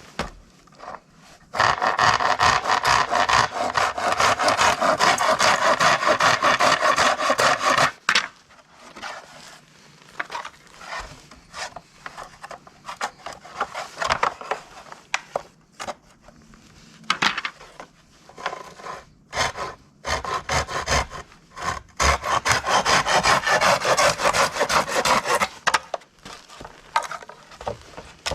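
Saw cutting through dry, dead bamboo: two long bouts of rapid sawing strokes, one starting about two seconds in and another near the end, with scattered knocks and scrapes of the cane in between.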